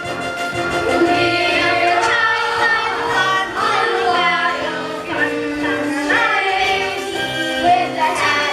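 Young cast singing a musical-theatre song together over instrumental accompaniment.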